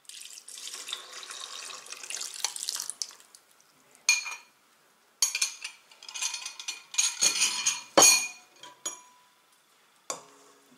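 Honey water poured from a glass bowl into a stainless steel mixing bowl for about three seconds, then a run of clinks and knocks of glass and metal dishes, the loudest about eight seconds in.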